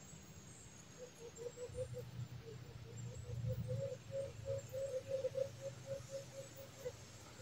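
White-eared brown dove (alimokon) calling: a long series of short, low hoots, about three to four a second, starting about a second in, with a faint low drone beneath.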